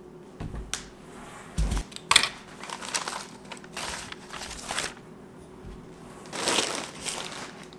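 Wrapping paper rustling and crinkling as rolls of gift wrap and a boxed gift are handled on a table. There are a couple of dull thumps and a sharp click in the first two seconds.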